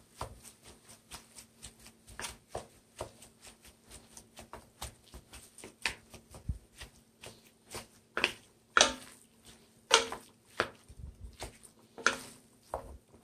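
A spatula chopping and scraping a cooked ground-turkey patty in a pan, making irregular clicks and taps, with a few louder knocks in the second half.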